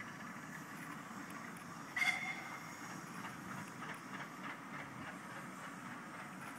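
Distant vintage vehicles running steadily as a vintage fire engine crosses a bridge, with one short, high-pitched toot about two seconds in.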